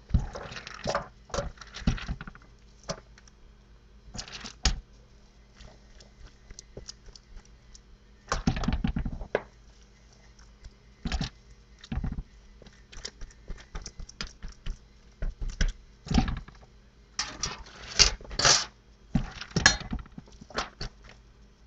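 Hands pressing raw ground meat into a thin disposable aluminium foil loaf pan: irregular crinkles and taps of the foil, coming in scattered clusters with quiet gaps between.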